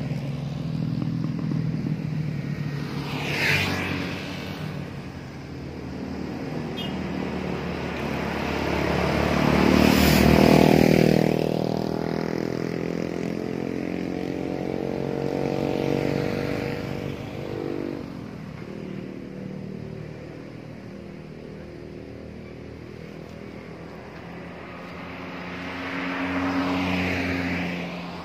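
Road traffic passing one vehicle at a time, motorcycles and a car among them. The loudest pass comes about ten seconds in, and its engine note fades away over the next several seconds.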